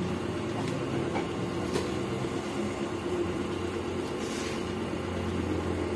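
A steady low mechanical hum, with a couple of faint knocks.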